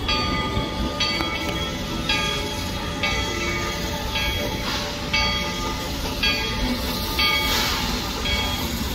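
Steam locomotive Lilly Belle's bell ringing about once a second as the train pulls slowly into the station, over the low rumble of the train. There are two short hisses, about halfway through and near the end.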